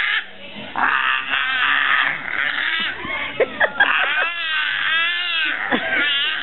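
Baby squealing and shrieking in play: a run of loud, high-pitched vocal bursts that rise and fall in pitch, with a few short sharp squeaks in the middle.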